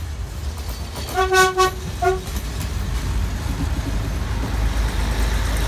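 Diesel passenger train's horn gives two toots, a longer one about a second in and a short one just after, a greeting to a waving trackside watcher. Then the train's engine and wheels rumble steadily as the cars pass close by.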